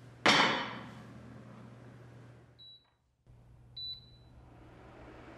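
A ceramic clay pot set down with a single ringing clunk, followed by two short high beeps about a second apart from the IH cooker's control panel as it is switched on.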